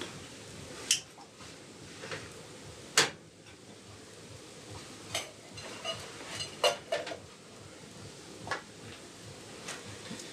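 Metal pots, lids and utensils clinking and knocking as they are handled at a kitchen counter: about ten scattered sharp clinks, some with a short metallic ring, the loudest about three seconds in and a quick cluster around six to seven seconds.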